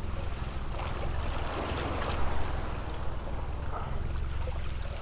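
Open-water ambience on a small boat: water washing against the hull and wind noise, over a steady low rumble.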